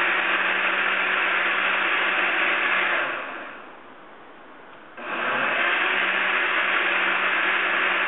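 Countertop blender running, blending a pale drink in its jar. It is switched off about three seconds in and winds down, then starts again sharply about five seconds in.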